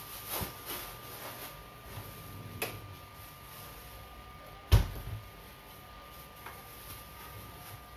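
Scattered knocks and clunks of kitchen handling, the loudest a heavy thump a little under five seconds in, over a faint steady hum.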